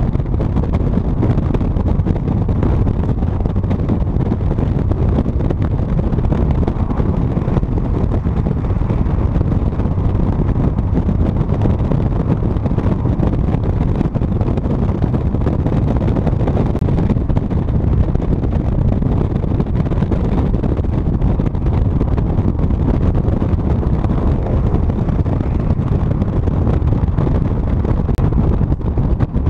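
Steady rush of wind buffeting the microphone of a camera on a moving car at highway speed, mixed with deep road and driving noise. It stays even throughout, with no distinct engine note standing out.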